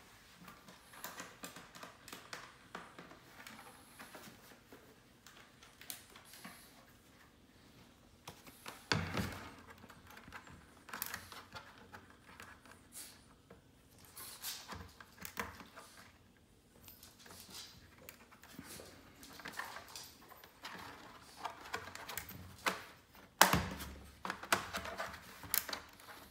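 Hands handling a plastic air purifier and turning the thumbscrews on its base by hand: scattered light clicks, scrapes and rubbing, with two louder knocks, about nine seconds in and again near the end.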